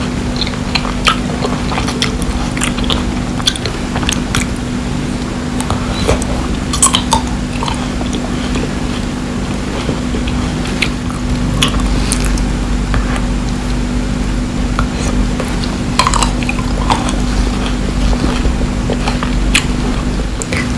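Candy grapes being bitten and chewed close to the microphone: short crisp cracks of the hardened sugar shell come at irregular moments. A steady low hum runs underneath.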